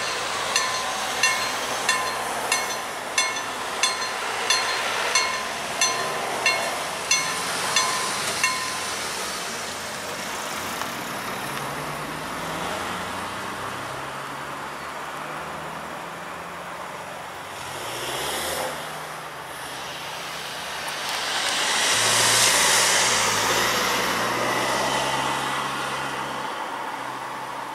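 Level-crossing warning bell ringing with even strikes, about one and a half a second, while the barrier arms come down. It stops about eight seconds in once they are lowered. Afterwards engine noise rises and a vehicle passes, loudest around 22 to 25 seconds in.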